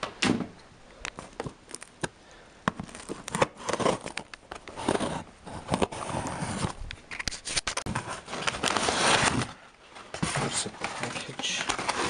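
A RAM module's packaging being cut open with a knife and pulled apart: irregular crinkling and crackling with sharp clicks, and a longer spell of louder crinkling near the end.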